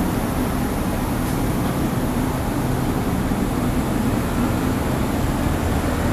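Steady drone of a truck-mounted crane's engine and hydraulics running while it hoists a slung load, with a low, even hum.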